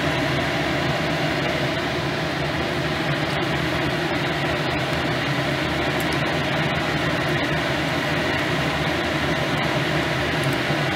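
Electric fan running steadily: an even whoosh with a low hum under it.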